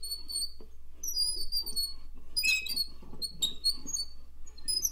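Quick, irregular high-pitched chirps and squeaks at varying pitches, over a faint steady low hum.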